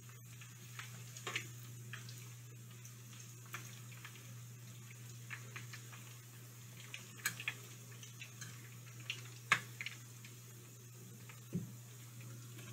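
Plantain slices sizzling quietly in hot frying oil in a pan, with a few sharp clicks of a metal fork against the pan as the slices are turned. A steady low hum runs underneath.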